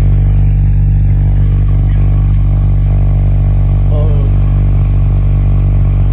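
A vehicle engine idling steadily: a loud, unchanging low drone.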